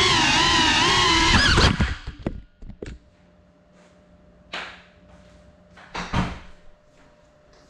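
FPV quadcopter's motors and propellers whining, the pitch rising and falling with throttle, then cutting out abruptly a little under two seconds in. A few sharp knocks follow as the drone comes down and stops. Faint thuds come after.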